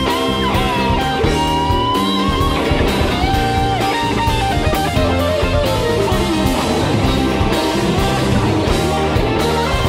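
Live rock band playing: a lead electric guitar holds sustained, bending notes over drums and bass, with a long sliding descent in pitch about halfway through.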